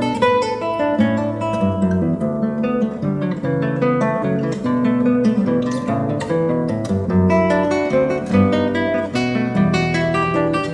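Solo acoustic guitar music, fingerpicked: quick runs of single notes over a moving bass line.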